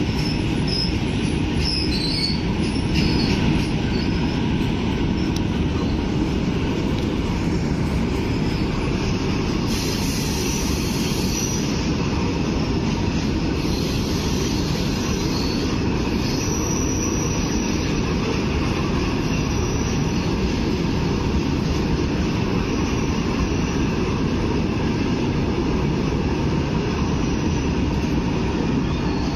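Freight train of open-top goods wagons rolling steadily past at close range: a continuous loud rumble of wheels on rail, with brief faint high wheel squeals now and then.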